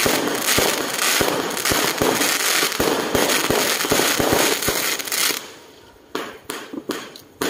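A ground-launched fireworks barrage: dense crackling from bursting shells over deep thumps of shots going up, about two a second. A little over five seconds in, the crackling stops abruptly and separate sharp bangs follow.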